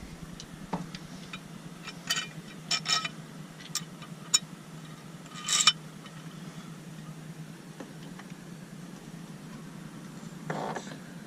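Scattered small metallic clicks and clinks of screws and grip mounting hardware being handled and fitted, about half a dozen over several seconds, over a steady low hum.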